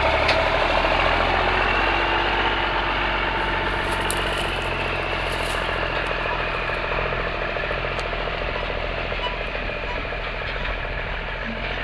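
1997 Freightliner FLD 120's Cummins N14 Plus inline-six diesel pulling a grain trailer away under power, a steady engine note that slowly fades as the truck moves off.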